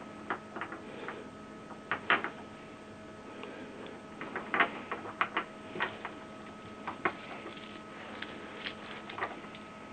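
Irregular small plastic clicks and taps as a black PG-745 ink cartridge and the ink-supply tube fittings on it are handled and pressed into place, over a faint steady hum.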